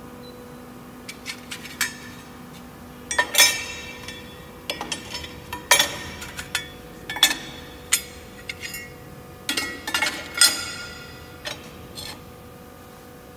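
Angle steel pieces clinking and clanking as they are set by hand into the steel clamping fixtures of an angle steel flange welding machine: irregular sharp metal knocks that ring briefly, over a steady machine hum. The knocks stop about a second before the end.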